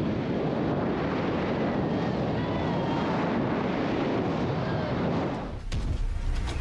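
Wind rushing over the microphone, mixed with the road and engine noise of a moving vehicle, as a steady noise. It drops away about five and a half seconds in, as intro music with a low beat begins.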